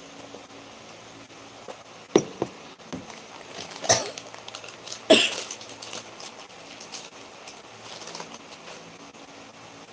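A woman's dry cough: short, sharp coughs in three bouts, about two, four and five seconds in.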